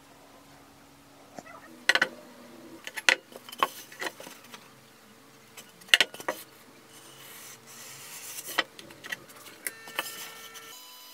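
Handling noises on a workbench: a series of sharp clicks and knocks as a foam block and a marker pen are picked up and set down, with a stretch of scratchy rubbing in the middle as the marker is drawn along the foam.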